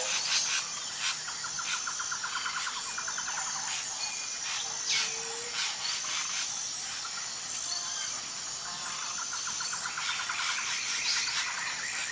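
Birds calling and chirping, with repeated rapid trills and many short sharp chirps, over a steady high-pitched insect drone. The sound cuts off suddenly at the end.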